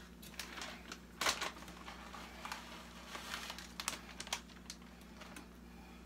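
Plastic bag of shredded cheese crinkling as it is handled and shaken out over a pan, in irregular rustles and light clicks, the loudest about a second in.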